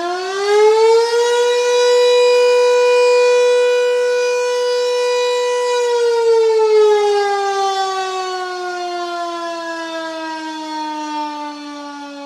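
Civil-defense-style warning siren sounding a single wailing tone. It finishes rising in pitch in the first second or so, holds steady for about five seconds, then slowly winds down in pitch.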